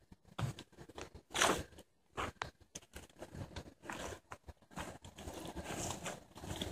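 Irregular crunching footsteps on dry grass and leaves, with a rustling hiss that builds near the end.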